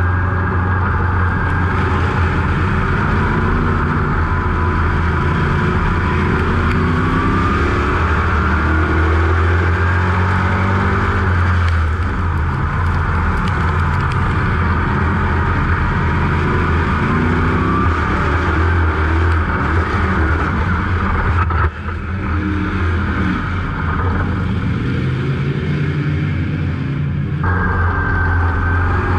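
A 602 Sportsman dirt modified's GM 602 crate V8 running, heard from inside the cockpit. The pitch rises and falls gently throughout, with a brief dip in loudness about three-quarters of the way through.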